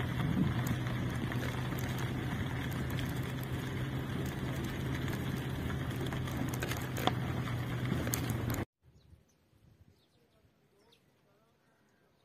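Steady loud noise with a constant low hum, which cuts off suddenly about nine seconds in. A much quieter stretch follows, with a few faint bird chirps.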